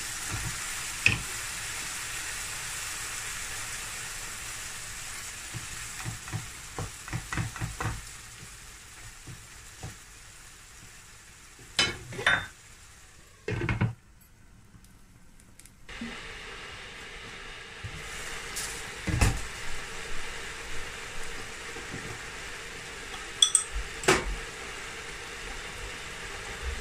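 Minced chicken in tomato-and-spice gravy sizzling and simmering in a nonstick frying pan on a lowered flame. A wooden spoon stirs and scrapes, and the pan's glass lid clinks a few times about halfway through.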